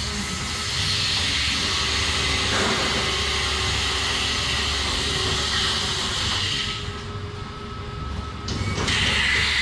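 DeLaval VMS milking robot's teat-cleaning cup running on a cow's teats: a steady hiss over a low machine hum. The hiss drops away for about two seconds near the end, then starts again.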